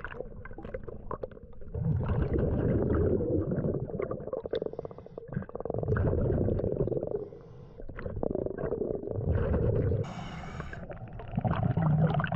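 Scuba regulator breathing heard underwater. Exhaled bubbles come in repeated bursts a few seconds apart, with a brief hiss of an inhale through the regulator about ten seconds in.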